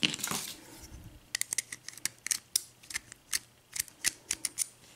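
Small metal lock handled in the hands: a short scrape, then irregular sharp metallic clicks and taps.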